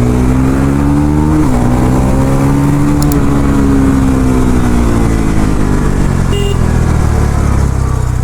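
Bajaj Pulsar NS400Z's single-cylinder engine through its stock exhaust, under way: revs climb, drop suddenly about one and a half seconds in at an upshift, climb again briefly, then fall away steadily as the bike slows.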